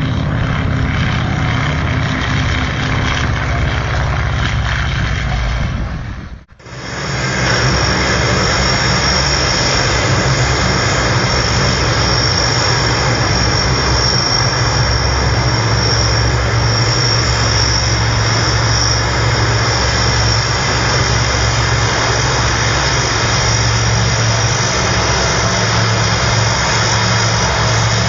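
Loud, steady engine noise with a high whine held throughout. It drops out abruptly for a moment about six seconds in, then comes back unchanged.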